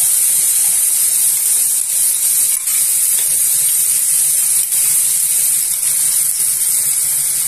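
Chopped onion and freshly added tomato purée sizzling in olive oil in a frying pan: a steady hiss, with a few faint clicks.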